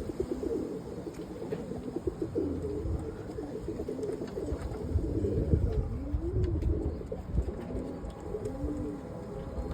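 Several roller pigeons cooing, their overlapping coos rising and falling in pitch, roughly one every second.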